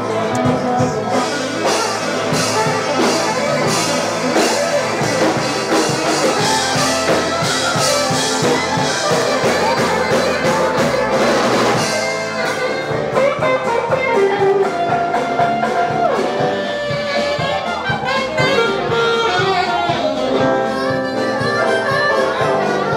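A live blues band playing, with electric guitars and drums. The music changes abruptly about halfway through to held, sliding harmonica lead lines over the band.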